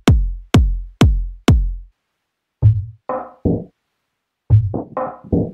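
Electronic techno kick drum samples, four deep decaying kicks about two a second, then after a short silence two groups of short pitched synth or percussion one-shots, three hits and then four.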